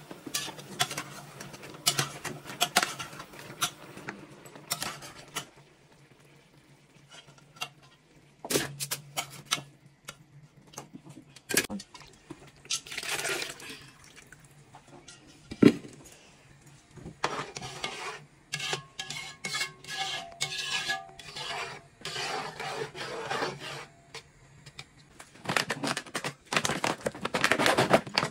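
Kitchen cooking sounds: a spoon stirring and scraping in a stainless-steel pot, with scattered clinks and knocks of pots and lids. Near the end there is a denser rustling as a plastic packet is handled.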